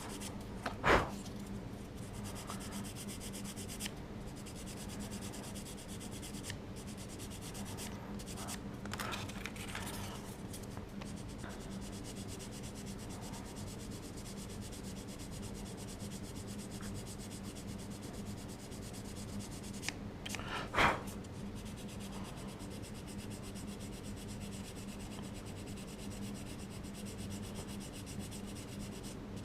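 Sanding stick rubbing against cured UV putty and resin on a small model part, with a steady low hum behind it and two brief knocks, about a second in and again about twenty seconds in.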